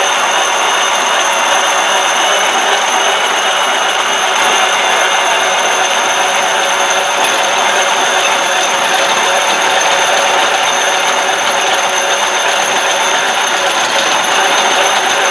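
Hardin Triad planetary concrete grinder running with 100-grit diamonds, grinding dry across a concrete countertop: a loud, steady grinding noise with a constant high motor whine.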